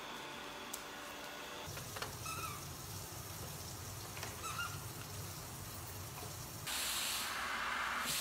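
Robot vacuum cleaner running with a low hum and two faint short chirps. About two-thirds of the way in, a vacuum cleaner hose nozzle sucking at a long-haired cat's fur starts up: a loud, steady hiss, the loudest sound here.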